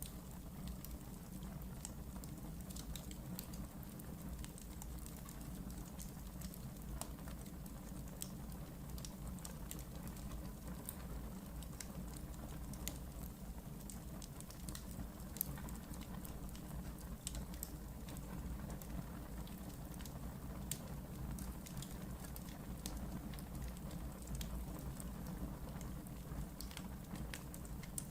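Wood fire burning in a fireplace: a steady low hiss of the flames with many small irregular crackles and pops.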